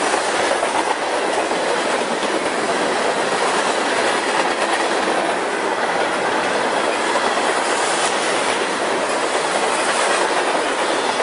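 A short BNSF freight train's cars rolling past at speed: a steady noise of steel wheels running on the rails.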